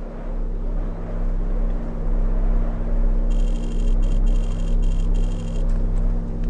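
A low, steady rumbling drone, swelling slightly, used as the film's sound design. About halfway through, a high electronic tone chirps in five short bursts as an on-screen caption types out letter by letter.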